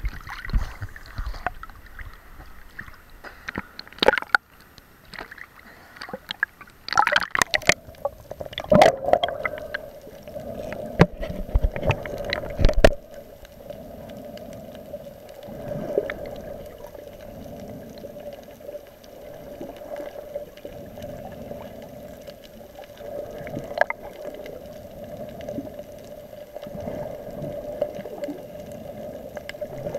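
Water splashing and knocking against an action camera's waterproof housing as it dips in and out of the surface, loud and irregular for the first dozen seconds. After that, muffled underwater sound with a steady low hum that swells and fades every few seconds.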